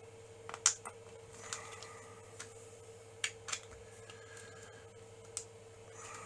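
Hard 3D-printed plastic parts clicking and knocking as they are handled and pushed together: scattered sharp clicks, the loudest about two-thirds of a second in, over a faint steady hum.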